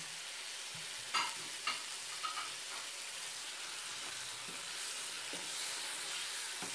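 Chicken pieces frying in oil and spice paste in a non-stick pan, with a steady sizzle. A spatula stirs the pieces and knocks against the pan a few times between about one and three seconds in.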